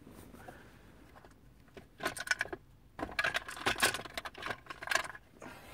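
Clicking and rattling of small plastic parts being handled: the cigarette-lighter socket's bulb holder and wiring connector. There is a short burst of clicks about two seconds in, then a longer run of quick clicks and rattles for about two seconds.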